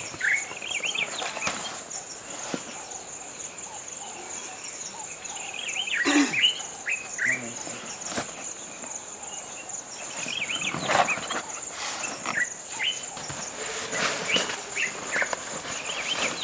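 Birds chirping in scattered clusters of quick notes over a steady, high-pitched insect drone, with a few brief knocks in between.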